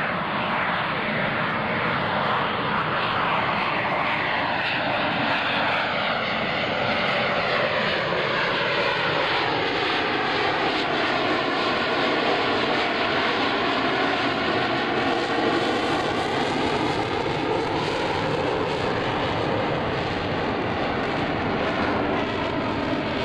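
Twin-engine F/A-18 Hornet jets flying a low two-ship formation pass. Their turbofans make a loud, continuous jet noise with a sweeping, phasing tone that shifts as the aircraft fly by.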